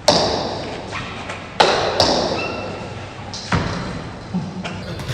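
Table tennis ball knocking against bats and the table, about six sharp knocks that each trail off slowly. The loudest come right at the start and about a second and a half in.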